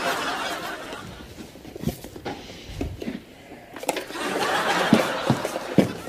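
Studio audience laughter that fades away over the first second and swells again a few seconds later. A few sharp taps come near the end.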